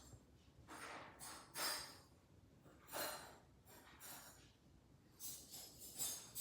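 A person breathing close to a microphone: a few short, soft breaths at intervals, in otherwise quiet room tone.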